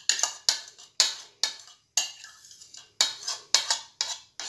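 A spoon scraping and knocking against a bowl, about a dozen sharp clatters in quick succession, as cream is scooped out onto cut fruit.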